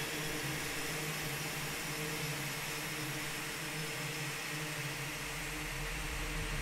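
Steady droning hum with a hiss over it, like machinery or ventilation noise, holding a few even tones. A deep low rumble swells in near the end.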